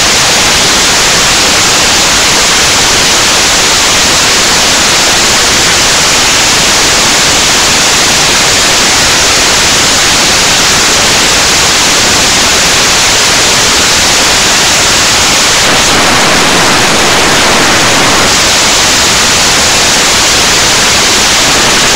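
Loud, steady static hiss with no other sound, turning slightly brighter for a couple of seconds about three-quarters of the way through.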